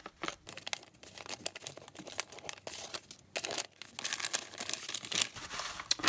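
Kraft paper gift bag rustling and crinkling in irregular crackles as hands handle and open it.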